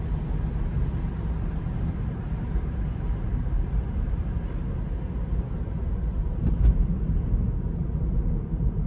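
Steady low tyre and road rumble inside a Tesla electric car's cabin while it drives, with a brief sharp double click about six and a half seconds in.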